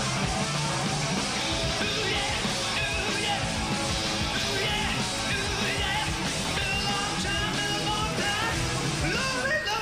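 Live hard rock band playing loudly: electric guitar, bass and drums, with a male singer's voice over them.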